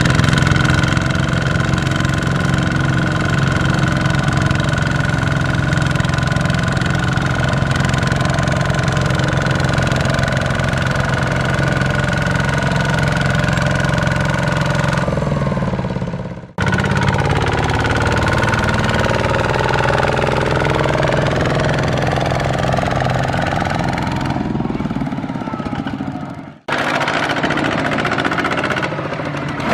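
Farm-machinery diesel engine running steadily in the mud. The sound breaks off abruptly twice, about two-thirds of the way in and again near the end, then resumes.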